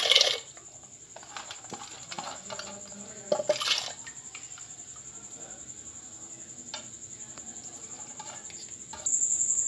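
Soaked chana dal tipped by hand into boiling water in a pressure cooker: a splash at the start and another about three and a half seconds in, then the pot quiet under a faint steady high whine.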